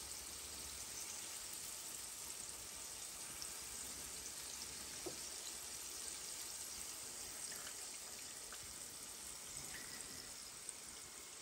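Cornstarch-and-egg-coated chicken pieces sizzling in hot frying oil, a steady hiss, with a few faint clicks.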